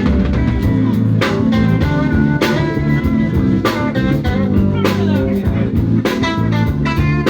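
Band music: guitar and bass over a drum kit, with a cymbal-like crash landing about every second and a quarter.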